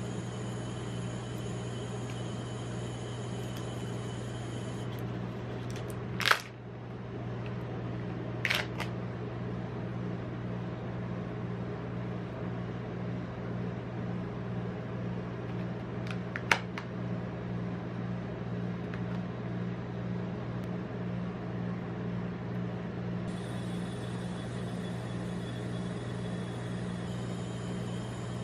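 A steady low hum throughout, with three sharp plastic clicks as a Kinder Joy plastic egg is handled and snapped open, the first, about six seconds in, the loudest.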